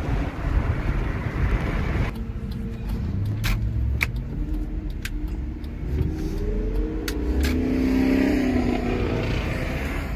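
Car road and wind noise that drops off sharply about two seconds in. After that a car engine is heard from inside a car, rising in pitch as it accelerates, loudest near the end, with a few sharp clicks in between.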